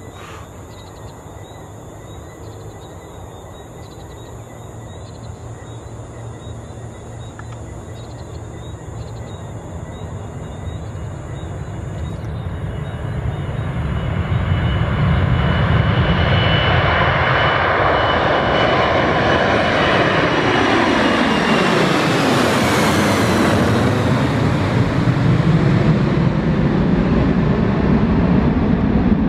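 A Boeing 747-400's four Rolls-Royce RB211 engines at takeoff power. The roar grows steadily as the jet rolls down the runway and lifts off toward the listener. About twenty seconds in, the engine whine falls in pitch as it passes overhead, and a loud, steady roar remains as it climbs away.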